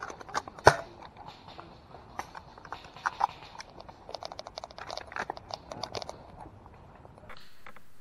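Footsteps crunching on leaf litter and twigs, an irregular run of short crunches and clicks with one sharper snap about a second in. Near the end this gives way to a steady low hiss.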